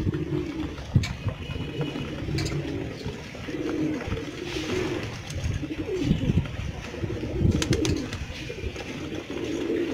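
A flock of domestic pigeons cooing over one another without a break, with wing flutters and a few sharp clicks among them.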